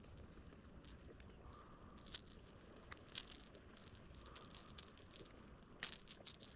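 Near silence, broken by a few faint scattered clicks and ticks, with a quick cluster of them near the end.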